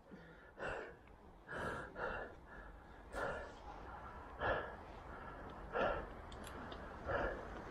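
A cyclist breathing hard while riding, about seven heavy breaths a second or so apart, over a steady low rumble.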